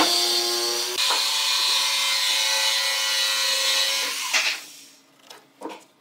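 A power tool's motor running steadily with a constant hum and a hiss, then stopping about four and a half seconds in.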